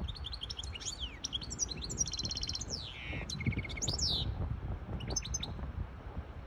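A caged goldfinch hybrid singing a run of quick twittering notes, with a rapid trill and a falling slide in the middle. The song ends with a short burst of notes about a second before the close.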